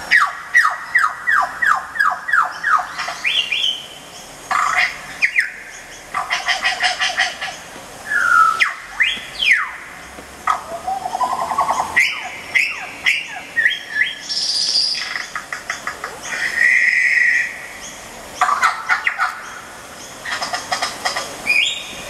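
Bird-like chirps, whistled glides and fast rattling trills in irregular bursts, played through portable loudspeakers, with a held whistle tone about three-quarters of the way through.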